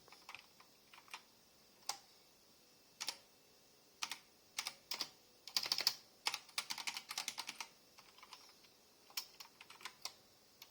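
Keys clicking on a mechanical keyboard fitted with HyperX Pudding keycaps: scattered single presses, then a quick flurry of keystrokes about halfway through, then a few more presses.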